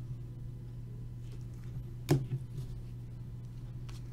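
Trading cards being handled, with one sharp tap about two seconds in, over a steady low hum.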